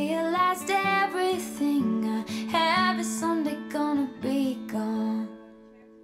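A song playing: a woman singing a slow melody over guitar, with held, wavering notes. The music falls away to a brief quiet pause near the end.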